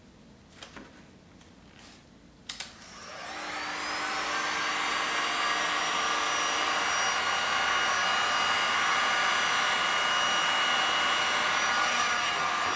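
Heat gun switched on with a click about two and a half seconds in, spinning up over about a second and then blowing steadily with a faint whine, warming wet epoxy resin paint on a tile.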